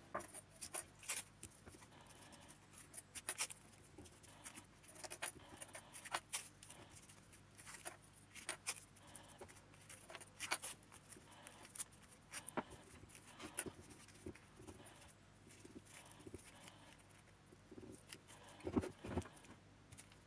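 Masking tape being pulled off the roll, torn and pressed onto a metal blower motor: a string of short, irregular rips and crackles, with a few duller knocks near the end.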